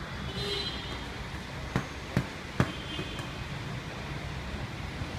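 Steady low rumble of rolling suitcase wheels on a walkway floor, with three sharp clacks close together around two seconds in.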